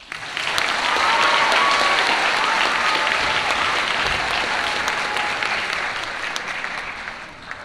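Audience applauding in an auditorium, breaking out all at once and tapering off near the end.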